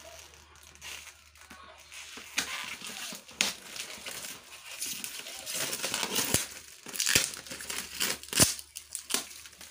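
A cardboard box being unpacked: packing tape cut and torn, and plastic wrapping crinkling and rustling, with scattered sharp clicks and knocks. The handling gets busier from about halfway through, and the loudest knock comes near the end.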